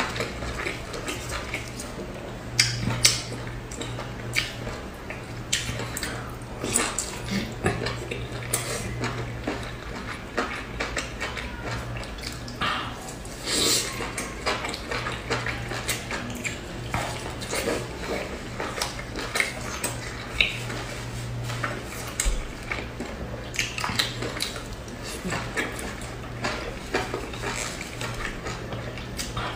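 Close-up eating sounds of boiled dumplings (jiaozi) being bitten and chewed: many short wet clicks and smacks of the mouth, with the odd louder clink or tap, over a low steady hum.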